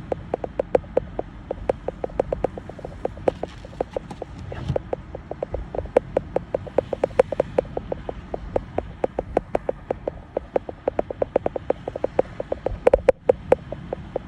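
A rapid, irregular run of sharp clicks or taps, several a second, over a steady low rumble.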